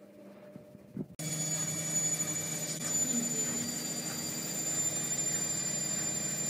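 Washing machine running with a steady hum and a thin high whine, which set in abruptly just after a short knock about a second in.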